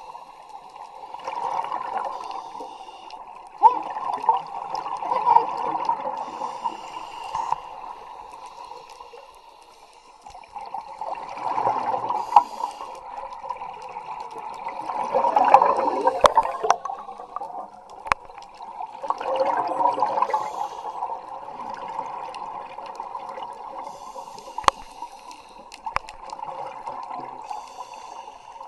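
Scuba divers' regulator exhalations heard underwater: muffled bubbling that swells and fades every few seconds, with a few sharp knocks.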